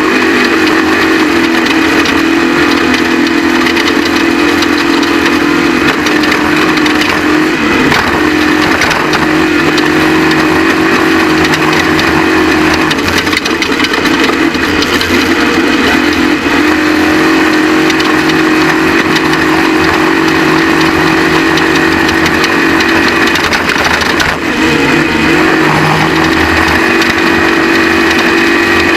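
Off-road race truck engine running hard and loud, held at a steady high pitch with a few brief dips and shifts in revs.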